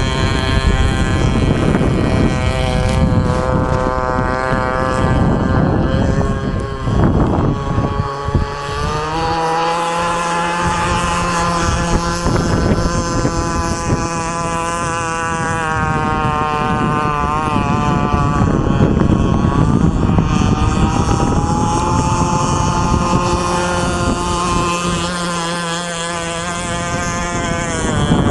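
Stock Zenoah G260 two-stroke engine of a 46-inch radio-controlled catamaran power boat running fast across the water, a high, buzzing note. Its pitch drops about a quarter of the way in as the throttle eases, then climbs and holds, with another dip and rise near the end.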